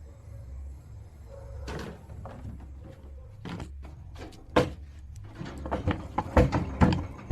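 Repeated knocks and bangs on a door as something tries to get in. They come scattered at first, then faster and louder in the last two seconds, over a low steady hum.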